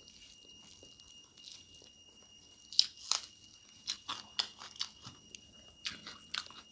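Close-miked chewing and crunching of smoked duck and rice: quiet at first, then sharp crunches several times a second from a little under three seconds in.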